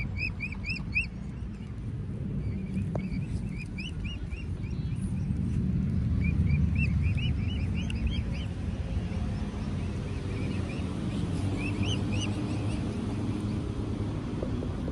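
Eight-week-old mute swan cygnets peeping: short high whistles, each rising then falling, in quick runs of three to six, repeated several times, over a steady low rumble.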